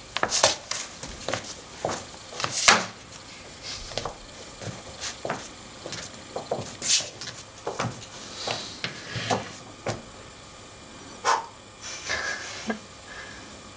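An actor moving about a stage: scattered footsteps and scuffs on the floor, with several loud, sharp breaths.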